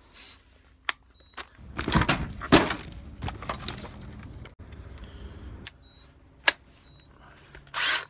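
Milwaukee M18 cordless impact driver having its battery pack swapped: plastic clicks and clatter as the flat pack is pulled and a fresh one snaps in. A short burst of the driver's motor comes near the end as the trigger is tried with the new battery.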